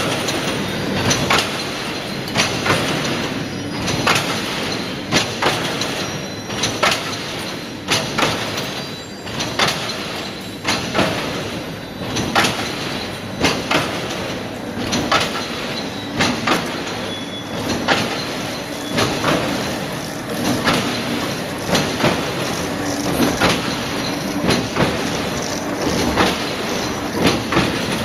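Gabion mesh weaving machine running, twisting and weaving steel wire into mesh: a steady mechanical clatter with a sharp metallic clack about every second and a half, and lighter clicks in between.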